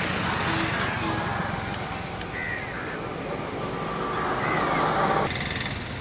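Birds calling, a few short calls standing out over steady background noise.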